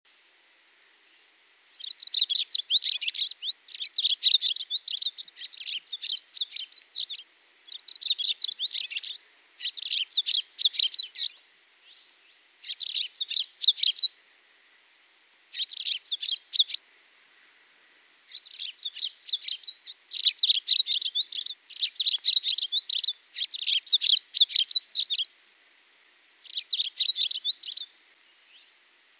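A songbird singing about a dozen phrases of rapid, high-pitched chirps, each lasting one to two seconds, with short pauses between them. The song begins about two seconds in.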